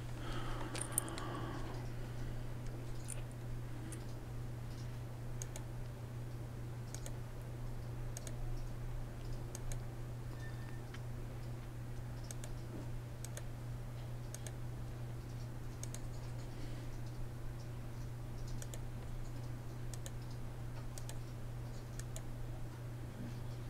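Scattered faint clicks from a computer mouse and keyboard, coming irregularly every second or two, as points are placed with the pen tool, over a steady low hum.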